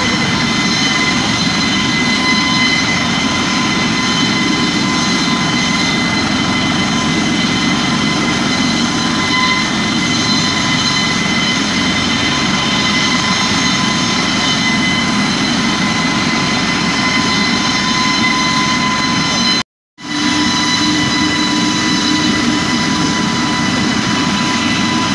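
Helicopter running on the ground: a steady high turbine whine over a loud rushing rotor and engine noise. The sound drops out for a split second about twenty seconds in.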